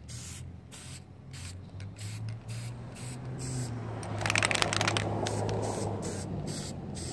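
Aerosol can of Permatex copper gasket spray hissing in short, quick bursts, about three to four a second, as a head gasket is coated. A brief rattling clatter about four seconds in is the loudest moment.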